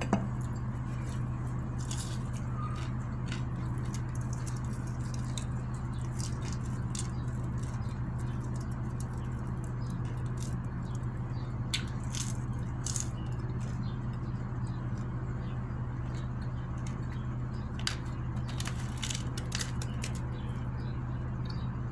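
Close-miked eating sounds: chewing with scattered crisp clicks and crackles from fried bisugo fish and salad, over a steady low hum.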